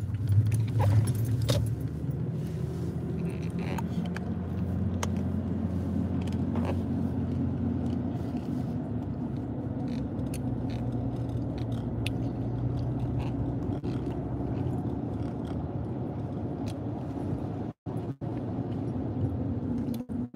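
Inside a moving car's cabin: a steady low engine and road hum, with a few light clicks in the first couple of seconds. The sound cuts out completely for a moment twice near the end.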